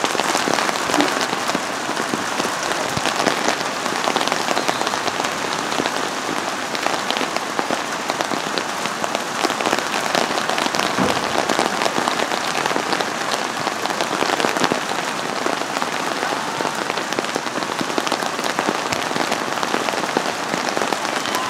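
Steady rain falling, with the fine ticks of many drops striking close by.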